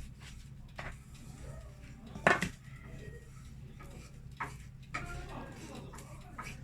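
Kitchen handling noises: a few separate knocks and clinks of dishes and utensils, the loudest about two seconds in, over a steady low hum.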